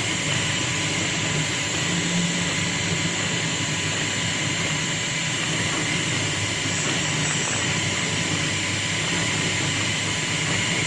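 A wood lathe running steadily with a constant high whine, while a hand-held turning tool cuts the spinning wooden bowl.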